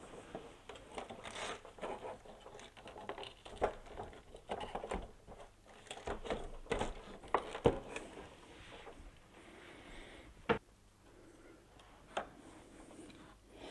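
Plastic parts of a mini-split indoor unit being handled and pressed into place as the fan's bearing holder is fitted: scrapes, rustles and a run of short plastic clicks, the sharpest about ten and a half seconds in.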